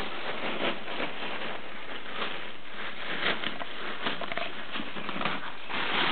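Deflated foil (mylar) helium balloon crinkling and rustling as a puppy chews and tugs at it, a run of quick irregular crackles that grows louder near the end.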